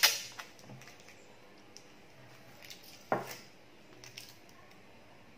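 Adhesive tape pulled off its roll with a short rip at the start, then scissors cutting through the tape about three seconds in. A few small clicks and rustles of handling come between.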